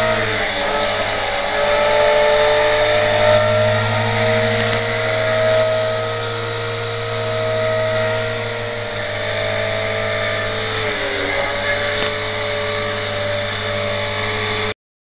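EXI RC helicopter hovering low, its motor and rotor whine steady except for a brief dip in pitch at the very start and another about eleven seconds in: momentary power glitches. The sound cuts off suddenly just before the end.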